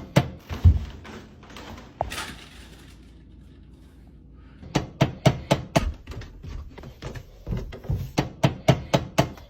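A series of sharp knocks: a few at the start, then a quick run of about three to four a second through the second half, with a short hissing burst about two seconds in.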